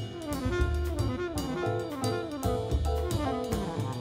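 Jazz background music: a horn melody in repeated falling runs over a bass line and a drum kit.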